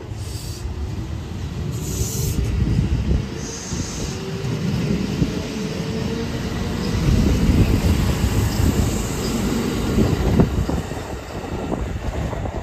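Kintetsu 2444-series electric train pulling out of the station and running past close by, with a heavy rumble of wheels on the rails that grows louder, and a faint rising whine from the traction motors as it picks up speed in the first few seconds.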